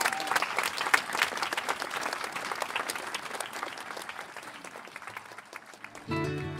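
Audience applauding, the clapping gradually fading away. Music cuts in suddenly near the end.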